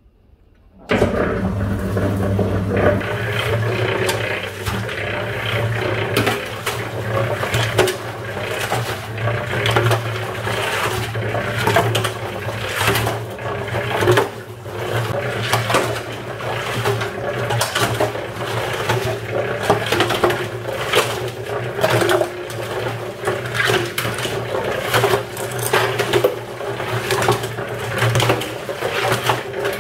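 Electric cement mixer switched on about a second in: its motor hums steadily while bricks and an olive tree tumble and clatter around in the turning drum.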